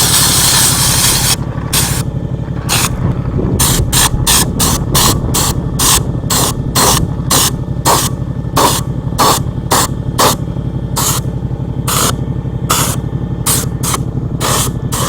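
Air-driven bedliner spray gun hissing as it sprays liner coating onto a boat hull: one continuous spray for about the first second, then a long run of short trigger bursts, about two a second. A steady engine hum runs underneath.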